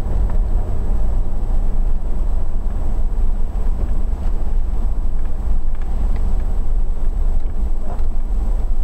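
Car engine and tyre noise heard from inside the cabin while driving: a steady low rumble with an even hum, no change in pace.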